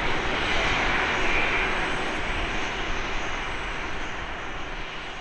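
Jet engines of an Airbus A330-300 airliner running at low power as it taxis past, a steady rushing hum with a faint whine that gradually fades away.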